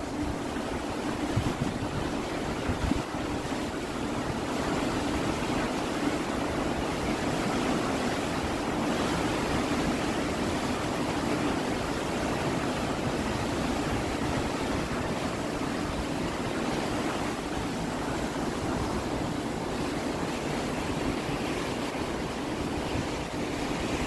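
Water rushing and churning in a lock chamber as it is let through the sluices to bring the levels equal: a steady rushing noise of turbulent water.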